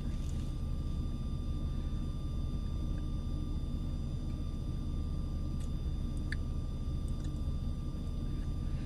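Steady low hum inside a car cabin, with a faint high steady whine over it and a few faint clicks around the middle.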